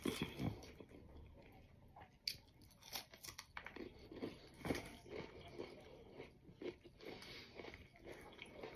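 A person eating close to the microphone: a series of crunchy bites with chewing in between.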